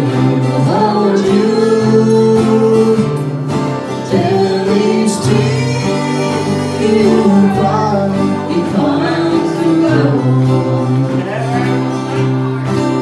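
A woman singing a song live, accompanied by two strummed acoustic guitars and a mandolin.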